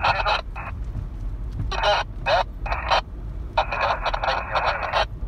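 Low, steady rumble of a vehicle driving slowly on a gravel road, heard from inside the cab. Over it come intermittent thin, tinny voice-like bursts, as if from a small speaker or radio, the longest lasting over a second near the end.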